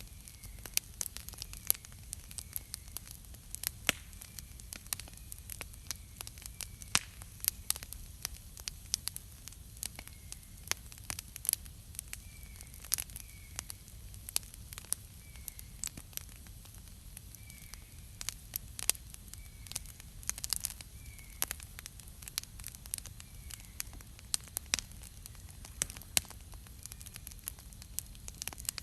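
Wood campfire crackling, with sharp, irregular pops several times a second over a low steady hiss. Faint short chirps repeat about every second or two behind it.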